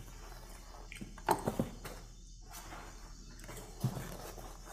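Fabric tackle bag being stuffed into a boat's aluminium storage compartment: soft rustling and bumps, with two louder knocks about a second and a half in and another near four seconds.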